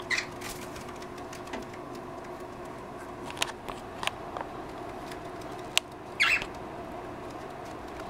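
Pet cockatiels giving short chirps: a brief one at the start and a louder one about six seconds in, with a few sharp clicks between, over a steady low hum.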